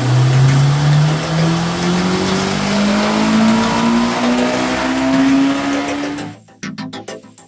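Car engine accelerating hard in one long pull, its pitch climbing steadily for about six seconds with a faint high whine rising with it. It cuts off abruptly near the end, leaving a few short sharp clicks.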